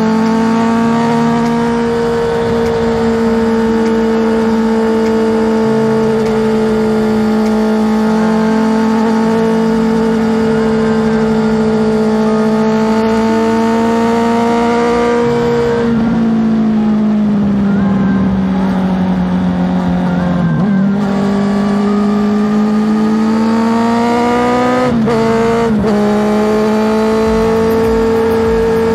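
Honda CBR650R's inline-four engine running under way at a steady cruise. Its pitch sags from about halfway through, then climbs again as it accelerates, with a sharp break in the note near the end as it shifts gear.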